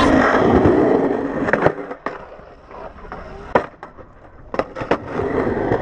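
Skateboard wheels rolling on concrete, fading after about a second and a half. Sharp clacks follow as the board strikes the concrete and the ramp edge: a few in the middle and several in quick succession near the end.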